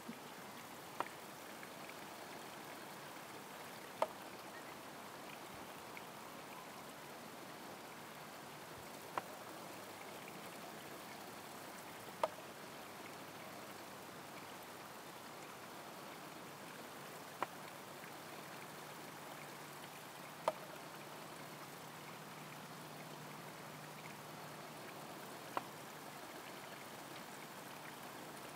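Homemade bamboo shishi-odoshi: water trickles steadily into the bamboo tube and onto the stones, with a sharp click every three to five seconds. Right at the end the filled tube tips over to empty and knocks back down.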